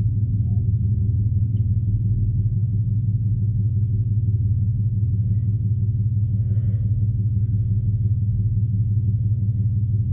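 Steady low mechanical hum at an even level.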